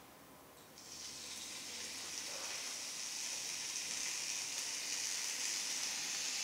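Skewered meat sizzling in hot shallow oil in a frying pan: the sizzle starts suddenly about a second in as the meat goes into the oil and grows steadily louder.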